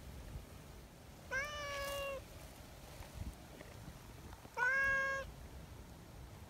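A domestic cat meows twice: once about a second in and again about three seconds later. Each meow rises at the start and then holds steady, and the second is shorter and louder.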